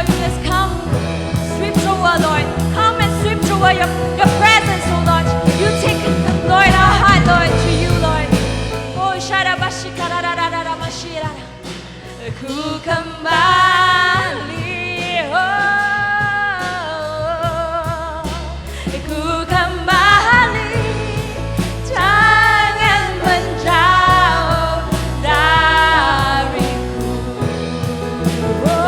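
Worship song being sung over a band, with sustained bass notes under the voices: congregational gospel singing.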